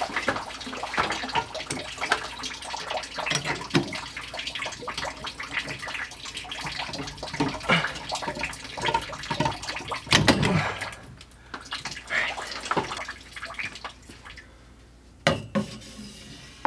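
Water trickling and dripping from an opened PEX water line, mixed with small clicks and knocks of hands and a tool working the pipe fitting. It eases off near the end, where a couple of sharp knocks stand out.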